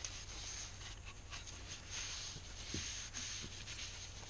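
Cloth rag rubbing over an oil-soaked wooden moulding plane, wiping off the excess oil: a faint, soft, continuous rubbing.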